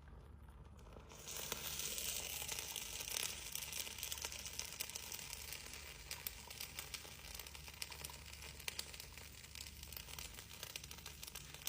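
Chocolate sizzling and crackling under a hot 'volcano ball': a steady hiss thick with fine crackles that starts about a second in and fades slightly toward the end.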